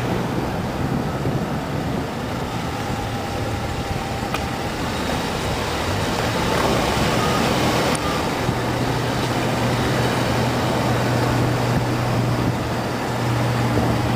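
Car driving slowly at low speed: a steady low engine hum with tyre and road noise, the hum growing stronger a little over halfway through.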